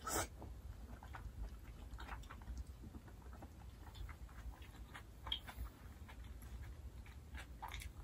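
A person chewing a mouthful of jjajangmyeon (noodles in black bean sauce): soft, irregular wet mouth clicks, with a slightly louder one right at the start.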